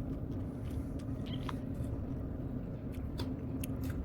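A person chewing cake close to the microphone, with scattered small clicks of the mouth and utensils, over a steady low hum.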